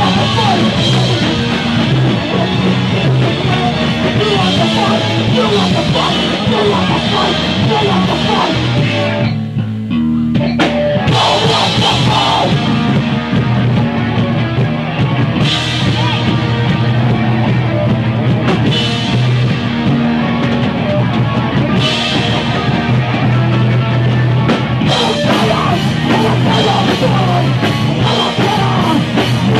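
Hardcore punk band playing live: distorted guitars, bass and drums under a shouted vocal. The band drops back for about a second roughly nine seconds in, then comes back in full.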